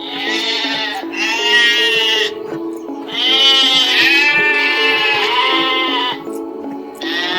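A goat bleating: repeated long, wavering bleats, one of them lasting about three seconds, over background music with steady held notes.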